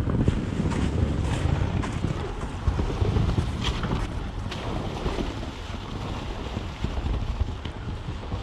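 Low rumble of an off-road vehicle driving over rough ground, with wind buffeting the microphone and a few scattered knocks.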